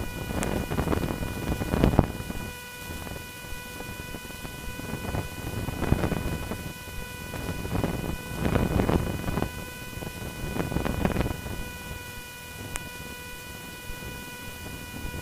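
Cessna 150 in flight heard through the cockpit intercom feed: engine and wind noise swelling and fading every couple of seconds over a steady electrical whine of several evenly spaced tones.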